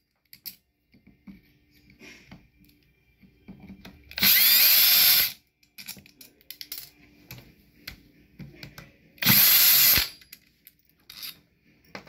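Cordless drill-driver backing out Phillips screws from the cover of an electric fan motor: two bursts of about a second each, the motor spinning up with a rising whine. Small clicks of handling come between them.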